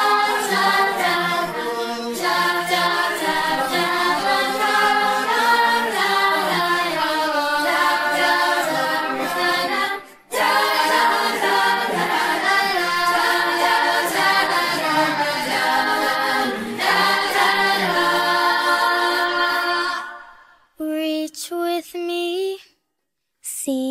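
Isolated song vocals: layered voices singing sustained harmonies a cappella, like a choir, with a brief break about ten seconds in. Near the end the singing thins to short, separate notes with short gaps between them.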